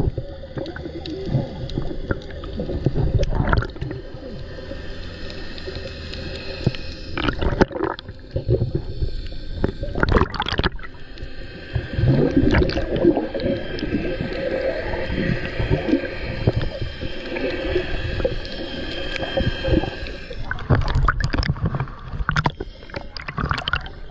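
Muffled sound of the sea heard through an underwater camera: gurgling and bubbling water, with a steady hum of boat motors carried through the water. Near the end the camera breaks the surface with choppy splashing.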